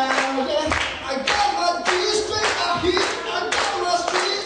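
Audience clapping along in a steady beat, a little under two claps a second, with a voice singing over it.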